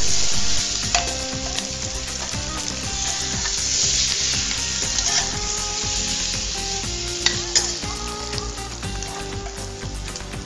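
Onions sizzling as they fry in oil in a pressure cooker, stirred with a long metal ladle that now and then clicks and scrapes against the pot. The onions are lightly browned, ready for the meat to go in.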